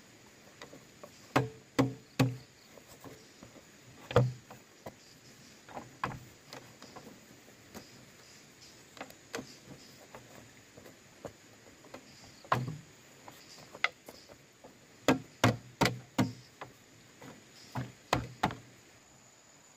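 Sharp, irregular blows of a tool striking bamboo, some single and some in quick runs of two to four.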